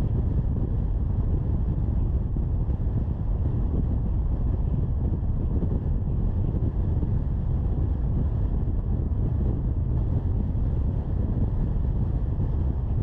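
Steady low rumble of a car driving at road speed: wind buffeting the microphone over tyre and road noise.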